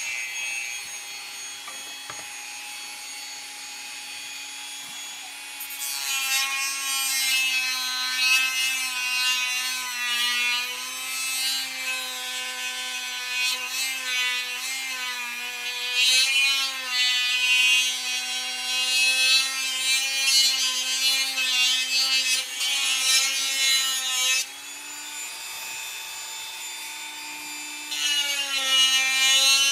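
Dremel rotary tool running with a steady high whine, its bit grinding and contouring the edge of a Kydex sheath. From about six seconds in the grinding grows louder and rougher and the whine wavers under load; it eases off for a few seconds near the end as the tool runs free, then bites in again.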